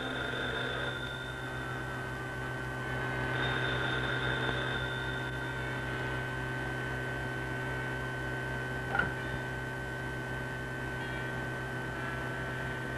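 A steady electrical hum with several held tones underneath a faint, regular low pulsing, broken by a single click about nine seconds in.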